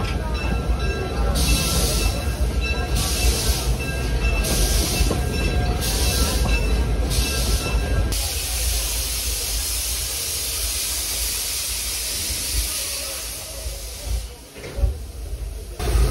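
1907 Baldwin steam locomotive moving slowly with its coach, a low rolling rumble under repeated bursts of steam hiss about every second and a half. From about eight seconds in the hiss turns into one continuous rush of steam.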